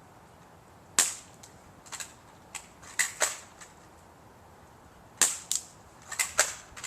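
BB air rifle being fired repeatedly: a series of sharp, short snaps, four of them loudest, with fainter clicks in between.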